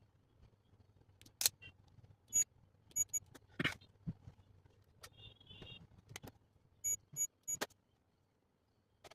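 A series of small, sharp clicks and light metallic taps, some with a brief ringing edge, from handling small electronic parts and wires on a breadboard. A faint steady hum lies underneath and dies away near the end.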